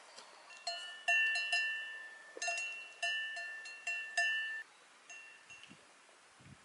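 A single cowbell on a grazing cow clanking irregularly as the animal moves, about a dozen ringing strikes over some four seconds. A couple of fainter clanks follow near the end.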